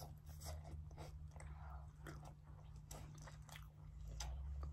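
Biting and chewing pepperoni pizza close to the microphone, with many small mouth clicks and crunches of the crust spread through the whole stretch.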